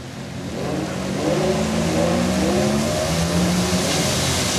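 Ferrari V8 engines (an F430, then a 458 Italia) accelerating out of the lot, the engine note rising in several upward glides. Tyre hiss on the wet road grows toward the end.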